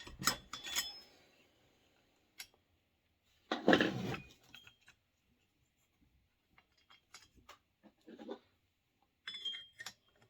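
Small metal parts and tools clicking and rattling during hand work on a chainsaw engine, with scattered light clicks, a louder rattle about three and a half seconds in and a softer one near eight seconds.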